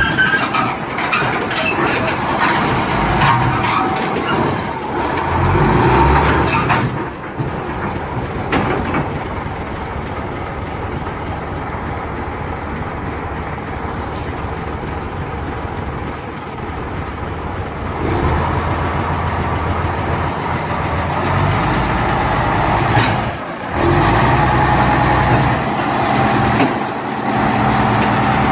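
Heavy vehicle engines running, in several clips that cut abruptly from one to the next.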